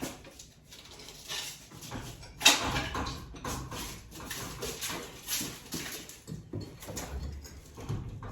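Wooden blocks being knocked loose and pulled out from under a newly hung sliding garage door: irregular knocks and clatter, the loudest about two and a half seconds in.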